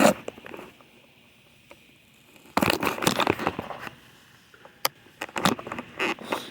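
Handling noise: a sharp click, then a burst of scraping and rustling a few seconds in, and several short clicks and knocks near the end.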